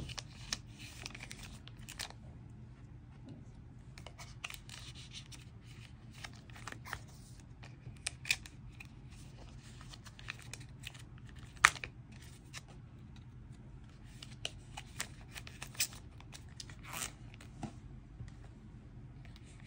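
Photocards being slid into the clear plastic sleeves of a small photocard book: soft plastic rustling and card scrapes with scattered light clicks, the sharpest about twelve seconds in.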